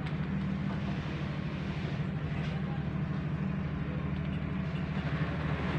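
A fishing boat's engine running steadily with an even low throb, under a constant hiss.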